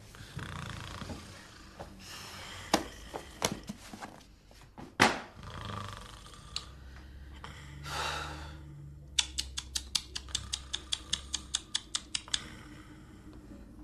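A man snoring and snorting in his sleep, with sharp clicks scattered through it and, near the end, a quick run of about fifteen clicks at four or five a second.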